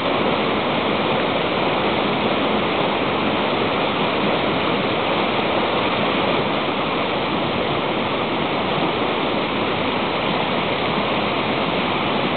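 Shallow rocky river rushing over boulders and small rapids, a steady even rush of water.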